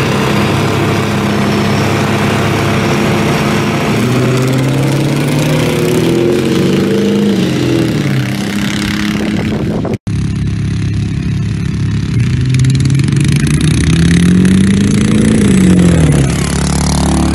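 A riding lawn mower's engine and a 7.3 Powerstroke diesel pickup's engine accelerating hard from a standing start, the engine note climbing steadily in pitch. After a sudden cut about ten seconds in, the riding lawn mower's engine revs up again, rising in pitch and then falling away near the end.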